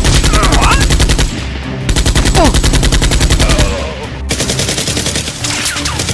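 Rapid automatic machine-gun fire, a gunshot sound effect laid over toy-blaster action, in long bursts: a loud one at the start, another from about 2 s to nearly 4 s, then quieter fire.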